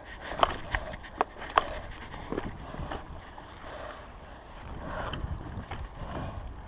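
Mountain bike rolling down a leaf-covered dirt trail: a steady rumble of the tyres over the ground, with sharp clicks and rattles from the bike over bumps, about four in the first two seconds and lighter knocks after.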